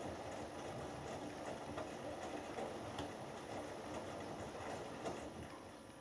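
Hoover Dynamic Next washing machine drum turning in the main wash, wet laundry tumbling with light clicks and knocks; a little past five seconds in the drum stops and the sound drops away to a quieter hum.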